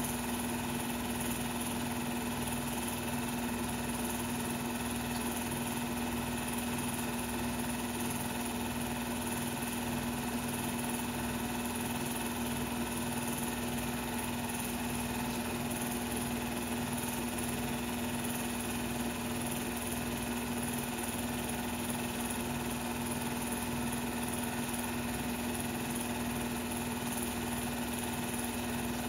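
16mm film projector running: a steady mechanical hum with one constant low tone over a whirring hiss.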